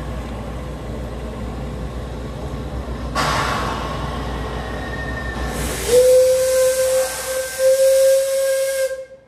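Shay steam locomotive SL31 hissing steam, with a surge of hiss about three seconds in, then its steam whistle sounding one long blast of about three seconds that slides up into a steady note and cuts off sharply.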